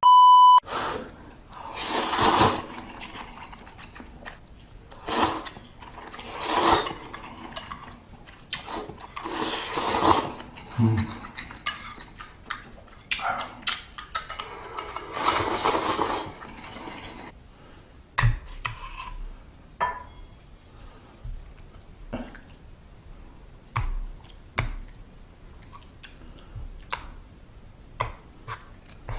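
Eating instant ramyeon from an earthenware ttukbaegi pot: several long slurps of noodles and broth, then chopsticks and spoon clicking and clinking against the pot through the later half. A short beep at the very start.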